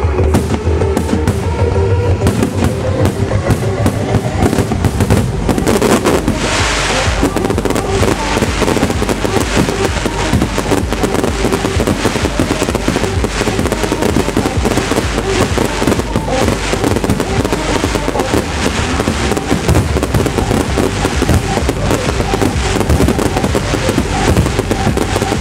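Fireworks shells bursting and crackling in rapid, overlapping succession over loud trance music.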